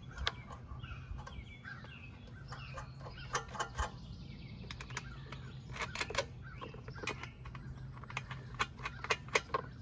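Scattered light clicks and taps of small metal flange nuts and the plastic recoil starter cover being handled as the cover is set onto its mounting studs on a Honda GCV160 engine. A faint, steady low hum runs underneath.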